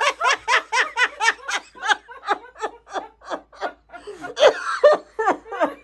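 A person laughing hard and without a break: a fast string of short "ha" syllables, about four or five a second, each falling in pitch, getting louder for a moment near the end.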